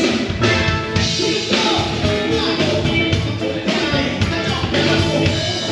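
A band playing music with a singer, loud and continuous.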